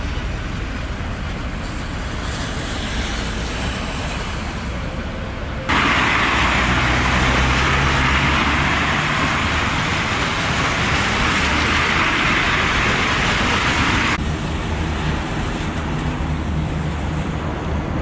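Road traffic on a wet, slushy road: cars passing with a steady hiss of tyres on the wet surface over a low engine hum, loudest from about six seconds in and cutting off sharply after about fourteen seconds. Before and after it, a quieter steady outdoor city ambience.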